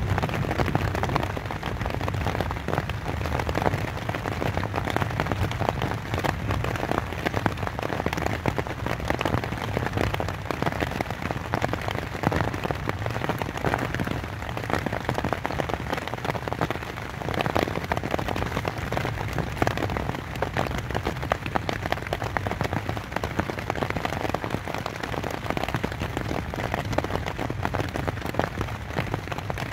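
Rain pattering on a tent's fabric, heard from inside: a dense, steady drumming of countless drops.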